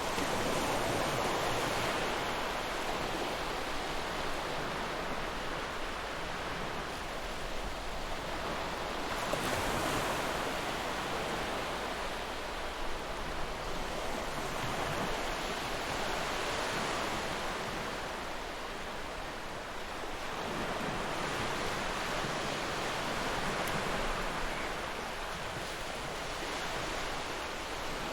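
Ocean waves washing onto a shore, a steady surf hiss that swells and eases every few seconds.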